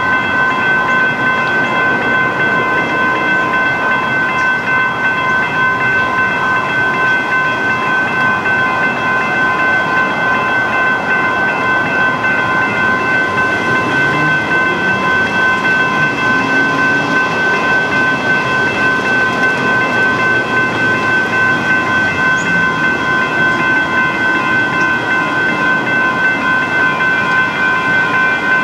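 Railroad crossing warning bells ringing continuously, a quick, even run of strikes with a steady metallic ring, over a low rumble.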